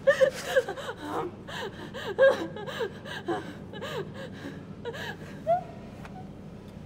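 A young woman gasping and crying out in short, strained breaths, each one rising and falling in pitch, as she struggles against an attacker pinning her down. The gasps thin out after about four seconds, with one last cry near the end.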